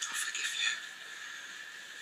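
Steady hiss of television sound picked up off the set, with a crying man's short breath in the first second.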